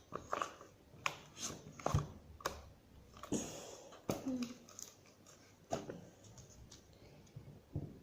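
Homemade glue slime being kneaded and squeezed by hand: irregular sticky clicks and squelches as it pulls off the fingers.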